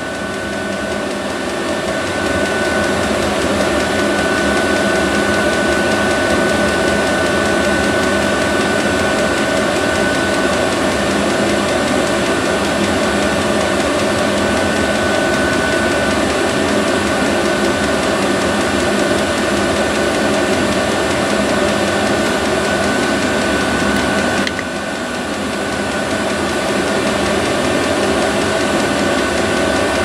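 Vevor 5 kW diesel air heater running with a steady whirring hum of its combustion and blower fans, still in its start-up phase before settling into its regular run cycle. About 24 seconds in the sound dips briefly, then builds back up over a couple of seconds.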